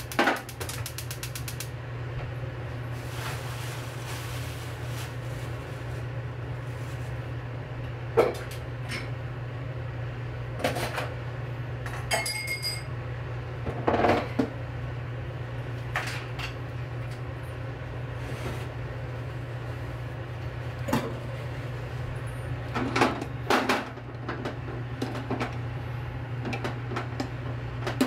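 Scattered knocks and clinks of dishes and utensils being handled in a kitchen, over a steady low hum, with one short ringing clink about twelve seconds in.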